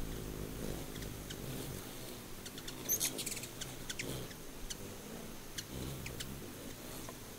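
Ruby-throated hummingbird wings humming as it hovers, the buzzy hum swelling and fading, with short high chips and ticks scattered over it, a cluster of them about three seconds in.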